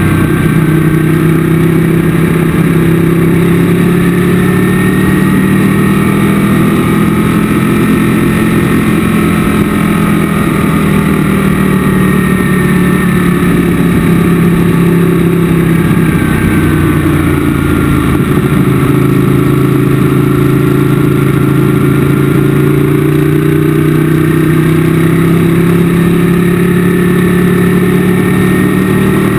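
Sport motorcycle engine running hard at track speed, heard from the bike's own onboard camera. Its pitch holds, dips around the middle, then climbs steadily toward the end.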